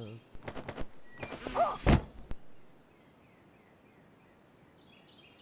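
Cartoon sound effects of an alarm being silenced: a few light knocks, then a swish and a heavy thump with a brief gliding cry about two seconds in, followed by faint room tone.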